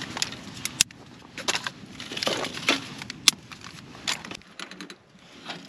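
Dry twigs and snapped sticks being handled and set down on a kindling pile, with a run of sharp clicks and cracks of wood and a few rustling scrapes.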